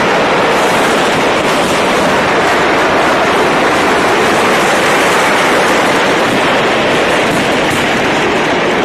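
Stock of Diwali firecrackers going off together in a burning stall: a loud, steady crackling roar with no single bang standing out.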